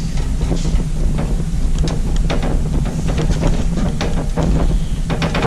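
Steady low rumble, with light clicks and taps of a screwdriver and metal parts as a gas water heater's replacement solenoid valve is screwed into place.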